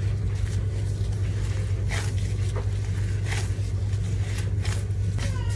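Gloved hands kneading pizza dough in a glass bowl, with a few soft scrapes and squishes, over a steady low hum.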